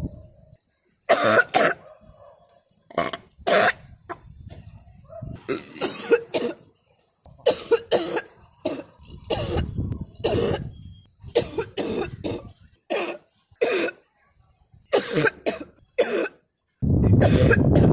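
A woman coughing and sneezing over and over in short, sharp fits with brief gaps between them, her nasal passage irritated by a rubber sutra neti tube. Near the end a louder continuous noise starts.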